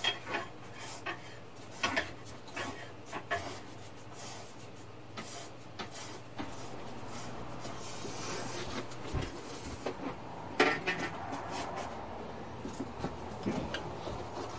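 Handling noise from a cardboard-and-foil solar cooker being set up: panels rubbing and scraping, with scattered light knocks and a louder rustle about ten seconds in.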